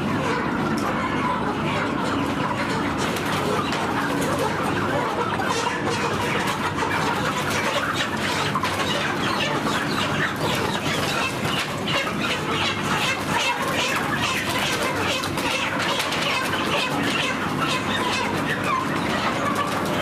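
A flock of chickens clucking continuously, many birds calling over one another at a steady level.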